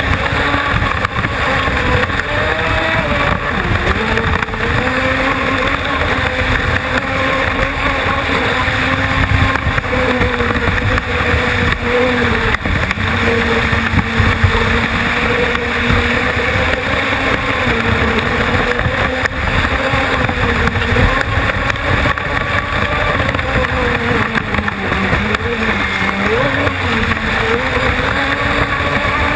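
Brushless electric motor of a radio-controlled speedboat running at speed, heard from on board: a steady whine whose pitch wavers through the turns and dips briefly near the end, over the hiss of spray and water rushing past the hull.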